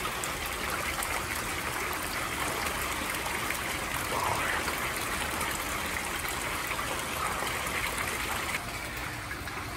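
Two-tier garden fountain splashing steadily, water spilling from the upper basin into the lower pool, slightly quieter near the end.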